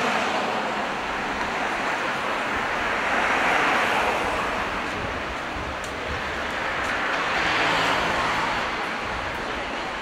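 Street traffic: a continuous roar of passing cars' tyres and engines, swelling twice, a few seconds in and again near the end, as vehicles pass close by.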